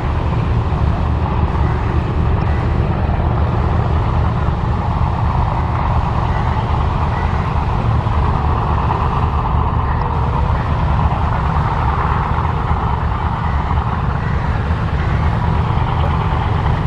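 Steady low rumble of a river passenger launch's diesel engine with rushing water, running evenly throughout.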